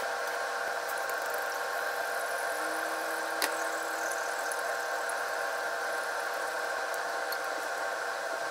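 Steady electric hum of a kitchen appliance's motor, holding an even level with a few faint clicks and one sharper click about three and a half seconds in.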